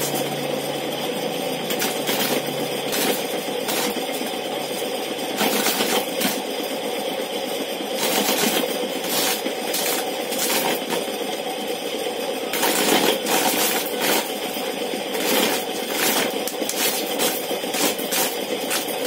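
Homemade electric corn sheller, a spinning disc driven by a repurposed ceiling-fan motor, stripping kernels off dried cobs held against it. The motor's steady hum runs under a continuous rattle of kernels being knocked off and pattering down, with frequent irregular sharp clicks.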